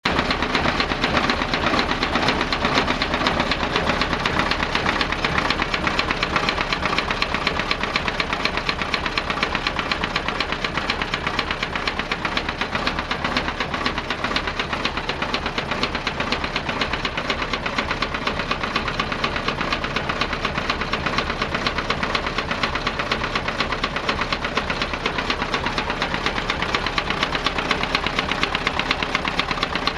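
KamAZ truck diesel engine running steadily with a rapid, even knock. The knock comes from a valve seat that has come out of the cylinder head.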